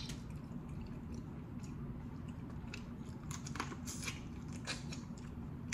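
Close-up eating of boiled crawfish: scattered wet mouth smacks, sucking and small crackles of chewing, most of them between about three and five seconds in, over a faint steady low hum.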